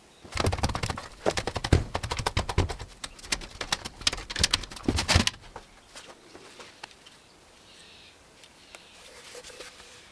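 Rapid, irregular clattering and knocking of parts for about five seconds as a desktop computer is taken apart, then quieter, with faint bird chirps near the end.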